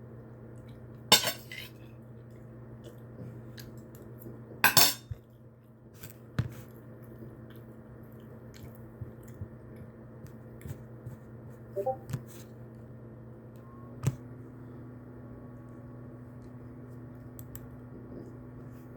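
Steady hiss and hum of a weather radio feed between broadcasts, cut off above the narrow radio band. Over it come a handful of sharp clinks and knocks, the loudest about a second in and again near five seconds in.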